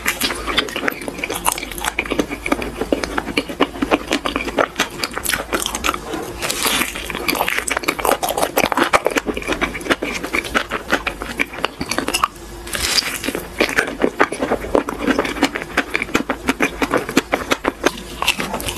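Close-miked eating sounds of biting into and chewing a soft cream-filled crepe roll: dense, wet, sticky chewing clicks throughout, with louder bites near the start and again about halfway through.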